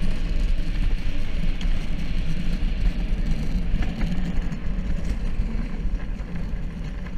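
Gravity-powered luge cart rolling fast downhill, its wheels making a steady low rumble on the paved track.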